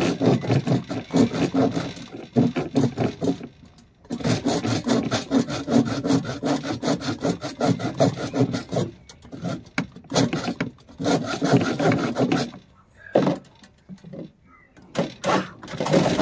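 A rusty handsaw cutting an oak dowel in rapid back-and-forth strokes. It stops briefly about four seconds in and again around nine seconds, then goes on with a few slower strokes near the end.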